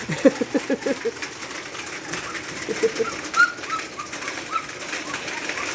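Young standard poodle puppies whimpering: a quick run of short whimpers in the first second and three more about three seconds in, then a string of thin, high squeaks.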